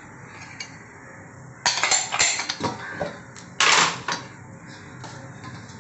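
Metal kitchen utensils clattering: a quick cluster of knocks about two seconds in, then a louder scraping rattle about a second and a half later.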